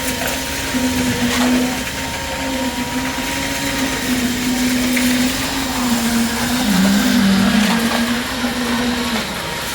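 A motor running steadily with a wavering hum, its pitch dipping briefly about seven seconds in, over a noisy hiss.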